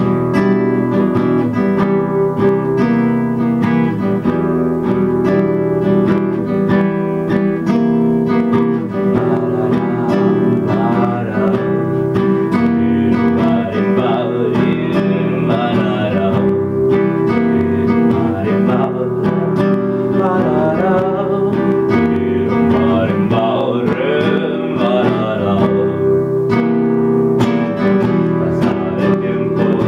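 Acoustic guitar played solo in steady ringing chords, with a man's voice singing over it from about ten seconds in.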